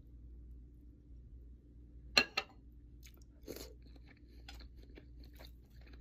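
Close-miked eating sounds of someone chewing raw tuna sushi with seaweed. Two sharp, loud bites or clicks come about two seconds in, a shorter crunch follows a second later, and faint smacking runs under them.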